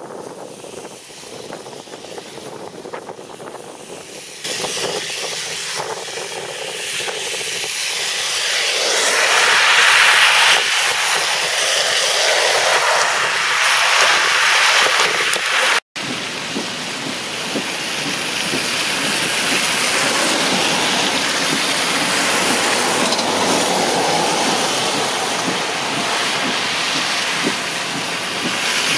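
Traffic driving through a flooded street, tyres hissing and splashing through standing water. The noise swells to its loudest about ten seconds in, drops out for an instant a few seconds later, then carries on steadily.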